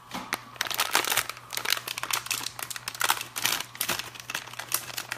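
Blind-box packaging being handled and unwrapped by hand to get at a mini figure: a dense, irregular run of crinkling crackles.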